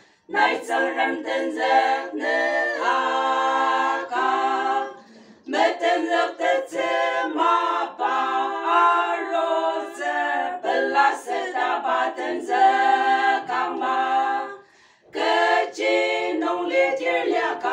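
A group of five women singing a cappella together in long phrases, with brief pauses about five and fifteen seconds in.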